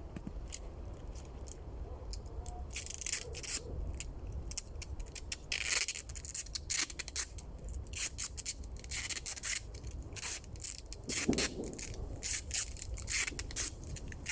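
Adhesive tape being pulled off its roll in many short, irregular rips and wound around the tops of long wooden poles to bind them together.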